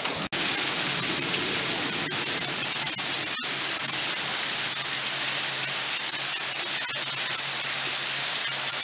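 Heavy rain pouring down in a steady hiss, with one sharp click about three and a half seconds in.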